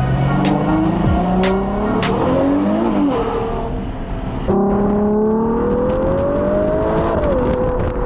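Ferrari Purosangue's naturally aspirated V12 revving hard, its pitch climbing and falling back. After a sudden jump about halfway it makes one long climb, then drops near the end as if on a gear change.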